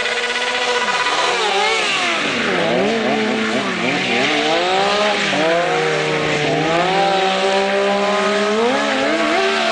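Sport motorcycle engines held at high revs with a rear tyre spinning on pavement in a burnout. From about a second and a half in, the revs rise and fall repeatedly as the bikes spin donuts, with two engines revving over each other and tyre noise.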